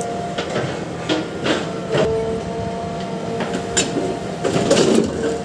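JCB excavator engine and hydraulics running with a steady whine, while the bucket works through a soil-and-stone mix, with a series of sharp knocks and clatters of stones, thickest near the end.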